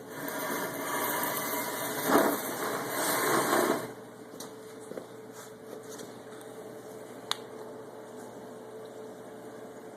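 Steady hum of running aquarium equipment, with a loud, rapid rattling noise over the first four seconds and a single sharp click about seven seconds in.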